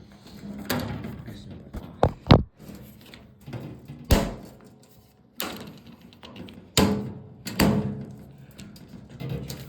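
Metal bangs and clanks from a toaster oven being pried and knocked apart, several sharp hits with brief ringing. The loudest is a close pair about two seconds in, with more around four, seven and eight seconds in.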